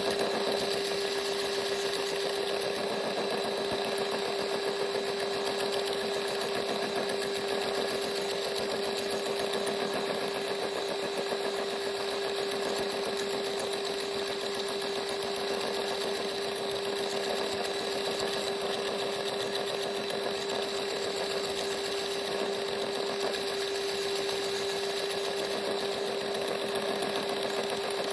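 Small battery-powered power tool with an interchangeable reciprocating head, running steadily on test with a constant motor hum.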